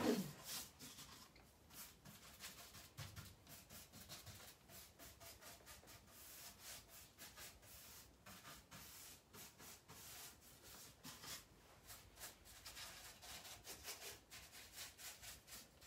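Dixie Belle Mini paintbrush working dark chalk paint onto the wooden base of a mahogany chest of drawers: faint, quick, repeated brushing strokes.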